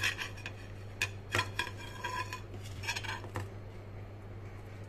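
Ceramic dishes clinking and knocking as they are handled, about half a dozen light clicks between one and three and a half seconds in, over a low steady hum.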